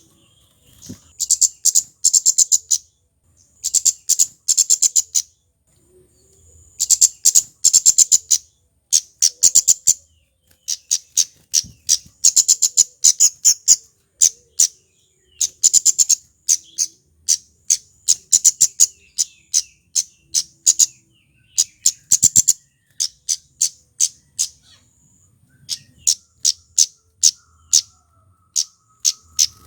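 A flowerpecker (kemade) calling: fast runs of sharp, very high-pitched chips lasting a second or two each, then single chips at about two a second through the second half.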